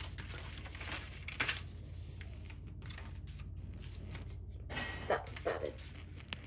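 Paper drawing rustling and crackling against a wall as a hand presses it flat, in a few short bursts, over a steady low hum.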